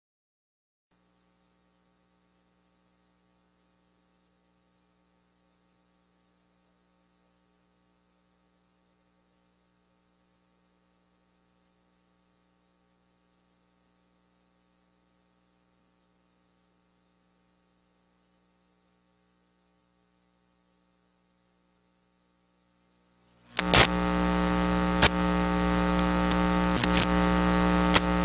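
Near silence with a faint electrical hum, then, about 23 seconds in, a sudden loud electrical buzz with crackling pops in the sound feed.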